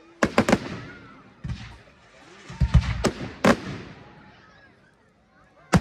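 Aerial fireworks shells bursting overhead: a run of sharp bangs, each with an echoing crackle, three in quick succession near the start, another about a second and a half in, a close cluster in the middle and one more near the end.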